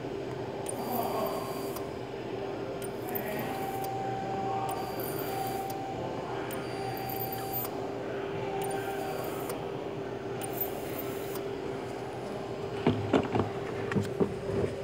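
Hot-air plastic welding gun's blower running, a steady hum with a hiss of air from the nozzle. Near the end, a quick run of sharp knocks and clatters as the gun is handled and set down.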